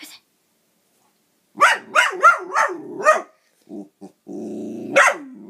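A dog barking about six times in quick succession, then a low, steady growl with one sharp bark breaking through it near the end.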